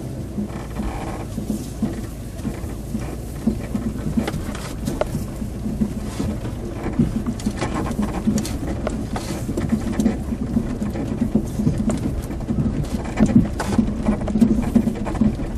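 Inside a Ford pickup cab on rough ground: a steady low engine and tyre rumble at walking pace, with frequent small knocks and rattles from the bumps, louder near the end.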